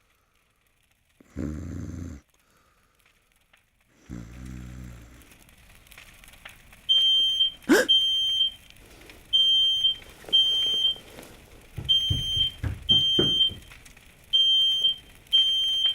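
A person snoring, with two snores in the first five seconds. About seven seconds in, a smoke alarm goes off: short, high-pitched beeps, mostly in pairs, repeating, with a sharp sound as it starts and some low thumps around twelve seconds.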